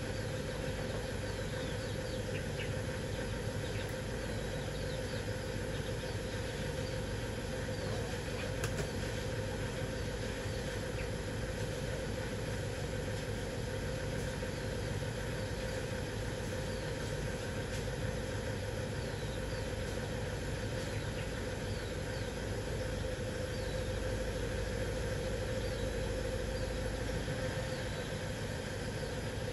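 Steady engine-like drone with a constant hum, and faint, short, high peeps of chicks scattered through it.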